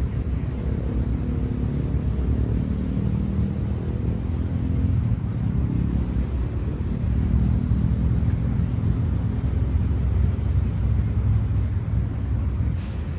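Steady low rumble of distant engine noise, swelling slightly in the middle.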